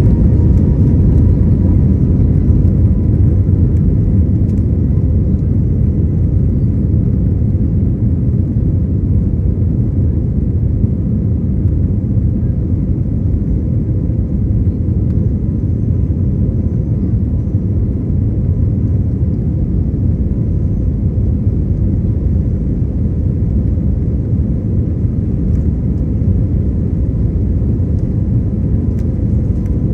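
Airbus A321neo's jet engines at takeoff thrust, heard inside the passenger cabin as a loud, steady rumble with a faint steady whine.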